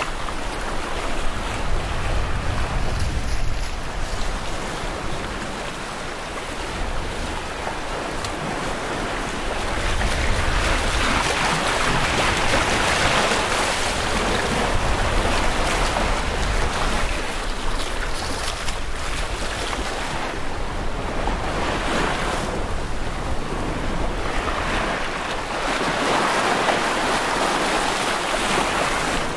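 Sea water rushing and splashing along the hulls of an Xquisite X5 sailing catamaran under way, with wind buffeting the microphone. The rush of water grows louder about a third of the way in and swells up and down in waves after that.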